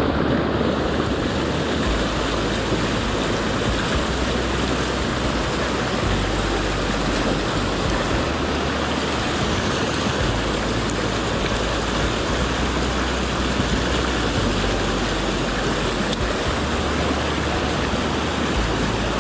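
Rushing water of a fast, strong stream tumbling over rocks in whitewater rapids close by: a steady, loud rush.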